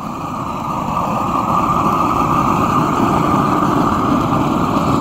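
Torch flame burning steadily as it chars a wooden post, the surface-charring of shou sugi ban wood preserving; it fades in over the first second and holds as an even rushing noise.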